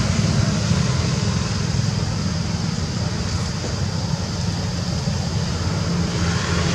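Steady outdoor background noise: a continuous low rumble with an even hiss above it, with no distinct events standing out.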